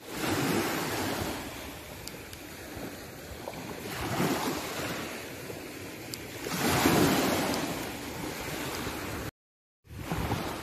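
Small waves washing up over a pebble beach and drawing back, swelling three times, loudest about seven seconds in. The sound drops out for half a second near the end.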